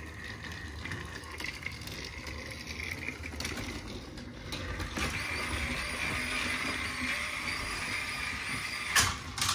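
Battery-powered Thomas & Friends TrackMaster toy engine whirring steadily as it runs along plastic track, a little louder from about halfway. A brief clatter comes near the end.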